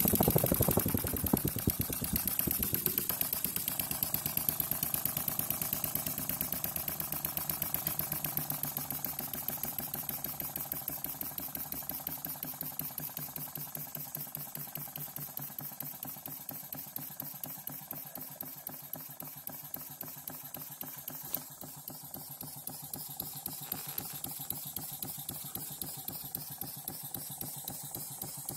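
Small model single-acting steam engine running steadily with a rapid, even beat. The beat fades gradually over the first twenty seconds or so, then holds steady.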